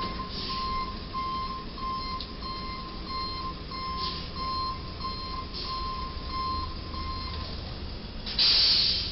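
Box truck's reversing beeper sounding about twice a second as the truck backs out from under a low rail bridge, stopping a little before the end. Near the end comes a loud short burst of hiss-like noise.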